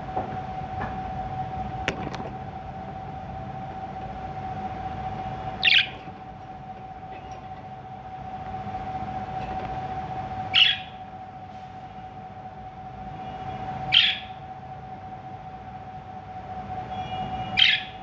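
Budgerigar giving four short, sharp chirps a few seconds apart, over a steady background hum.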